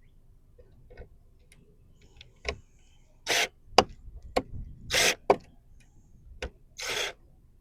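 Handling noise from working on the mirror with tools: a handful of sharp clicks and short scratchy bursts, the loudest coming between about three and five seconds in and again near the end.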